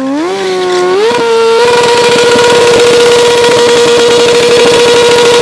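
A vehicle engine revs up over the first second and a half, then is held at a steady high pitch over a rough, rattling noise.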